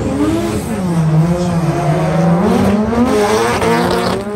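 Two drift cars' engines at high revs in a tandem drift, the pitch dipping and then climbing again with throttle, over tyre squeal.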